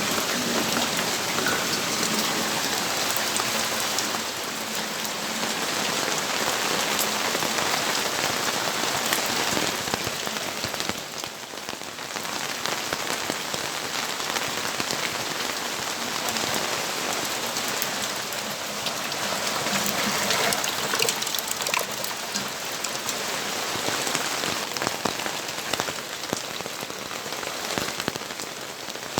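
Steady rainfall with many individual drops pattering on hard surfaces, a dense, even hiss that eases briefly about eleven seconds in.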